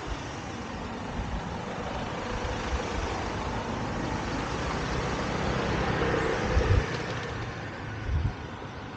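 A motor vehicle driving past on the street, its engine and tyre noise building to a peak about two-thirds of the way through and then easing off.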